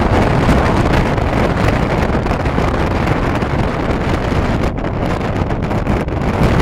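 Strong wind buffeting the microphone: a loud, steady rush of wind noise with no break.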